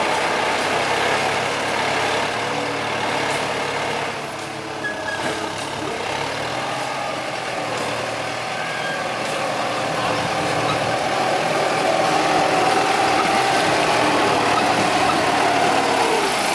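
Kubota M9540 tractor's diesel engine running steadily while the tractor moves over the dirt, grading soil with its front blade. The engine grows louder in the second half.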